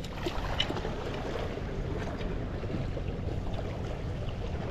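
Steady rush of seawater washing against shoreline rocks, with wind rumbling on the microphone.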